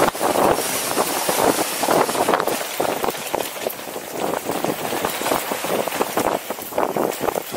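Mountain bike descending a dry dirt trail at speed: steady tyre noise over dirt and gravel with irregular clatter from bumps, and wind rushing over the microphone.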